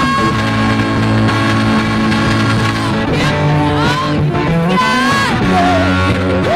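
Live amateur rock band playing: a woman singing into a microphone over electric guitars, drums and keyboard.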